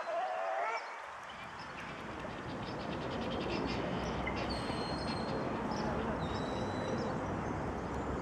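A short wavering animal call in the first second, then a steady rushing background noise with a few thin, high bird whistles.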